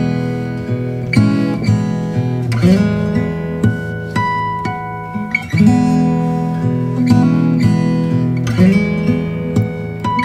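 Background music: acoustic guitar playing plucked notes and chords, with a stronger chord struck about every three seconds.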